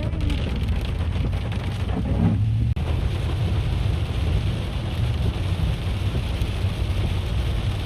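Steady road noise of a moving car on a wet road: a low rumble with an even hiss over it, dipping for a moment about three seconds in.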